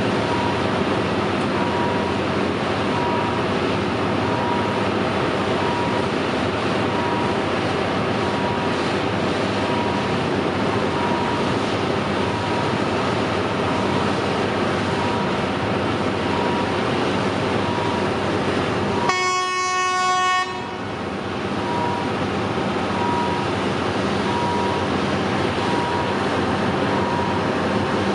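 Diesel train running by with a continuous heavy rolling noise, while a steady electronic beep repeats a little more than once a second. About two-thirds of the way through, the train's horn sounds once for about a second and a half, and the beeping drops out under it.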